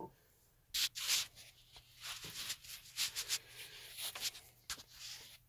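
Faint, scattered rustling and a few light taps as toys are handled and set down on a shelf, the loudest rustle about a second in.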